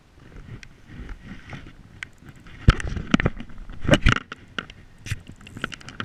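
A hand rubbing and knocking on the action camera's housing, with the loudest bunches of knocks and scrapes about two and a half and four seconds in, over scattered light taps of rain on the case.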